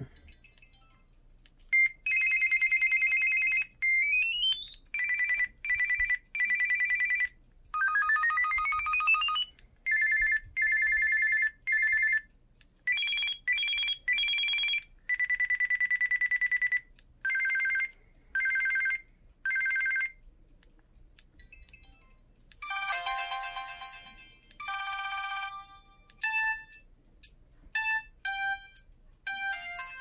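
Samsung SPH-M610 flip phone previewing its built-in ringer tones one after another through its own speaker: a string of short electronic beeps and rising sweeps with gaps between them. After a pause past halfway, a ring tone plays, dense and chiming at first, then a run of short melodic notes.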